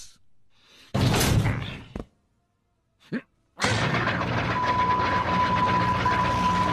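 A rushing noise for about a second, a click, then a vacuum cleaner starting and running steadily, with a low hum and a steady high whine that sets in shortly after.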